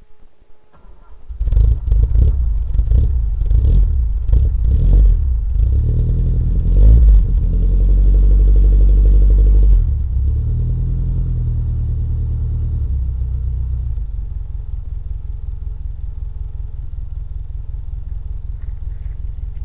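Race-built four-cylinder engine of a first-generation 1981 Mazda 626 heard at its tailpipe. It goes from quiet to loud running about a second and a half in and is blipped repeatedly. It then climbs and holds high revs for a couple of seconds, drops back about ten seconds in, and settles to a steady idle.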